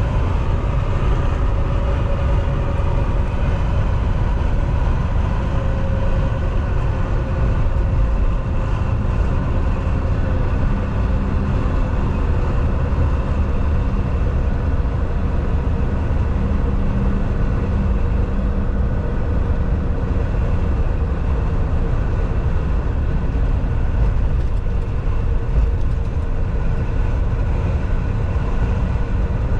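Volvo semi-truck driving on the highway: a steady drone of engine and road rumble with a faint steady whine, running evenly with no change.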